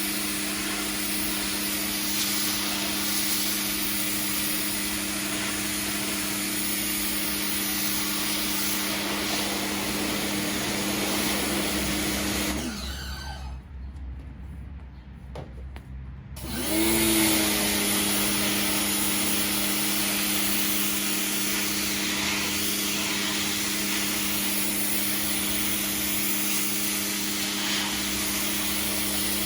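Pressure washer running with a steady motor hum and the hiss of the spray jet on concrete. Halfway through it winds down and goes quiet for about four seconds, then spins back up and runs steadily again.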